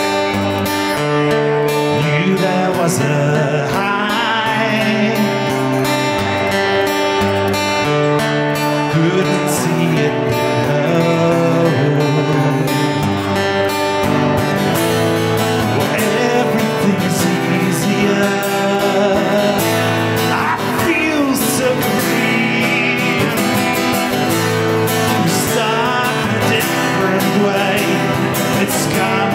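Live guitar music: steady chords with a wavering melody line over them.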